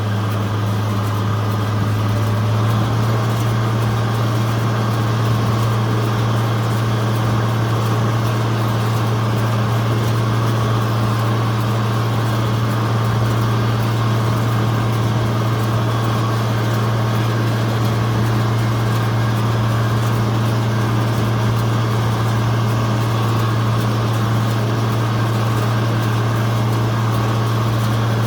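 Tractor engine running at a steady speed, a constant low drone that holds unchanged throughout.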